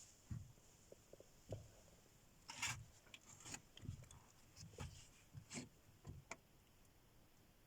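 Near silence broken by about a dozen faint, short knocks, clicks and rubs at uneven intervals.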